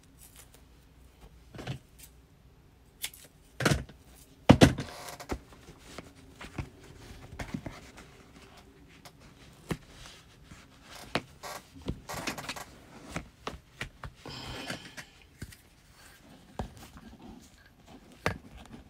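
Irregular handling sounds of sewing materials and tools on a work table: scattered light clicks and taps, a few sharper knocks about four to five seconds in, and brief rustles of vinyl and tape.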